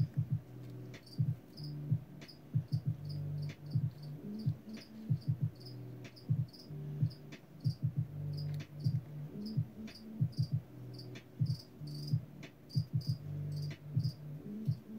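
A cricket chirping steadily, short high chirps about two or three a second, over a low hum that keeps swelling and dropping out, with a few faint clicks.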